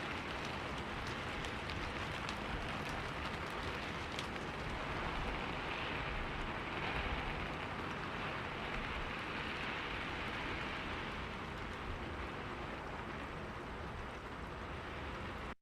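Steady rain falling: a dense, even hiss, with single drops ticking distinctly through it in the first few seconds.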